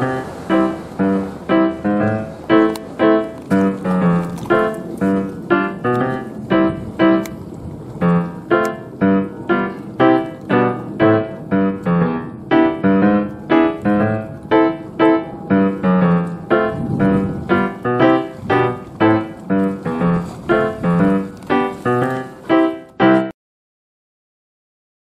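Background piano music, notes struck in a quick, even rhythm, stopping abruptly near the end and leaving silence.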